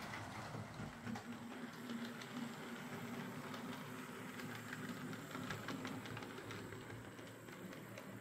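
Hornby OO gauge A4 'Mallard' model locomotive running along the track: a faint steady motor hum with light clicking of wheels on the rails. It runs smoothly on its newly fitted replacement motor.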